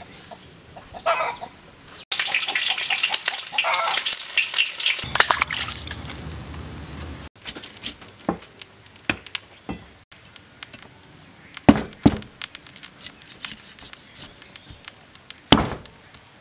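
A deep-fried pork trotter hissing and crackling in a basin of cold water. Then a meat cleaver chops through the fried trotter on a wooden chopping board: several sharp, unevenly spaced chops, the loudest in the second half.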